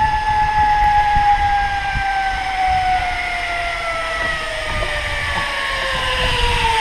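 Zip line trolley pulleys running along the steel cable: a high whine that falls steadily in pitch as the rider slows toward the landing, over a low rumble.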